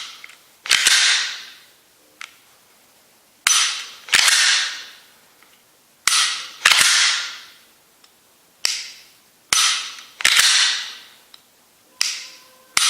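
Glock 19 Gen5 being dry-fired several times with its factory trigger connector: a sharp striker click, then the slide racked back and released to reset the trigger. The cycle repeats every two to three seconds.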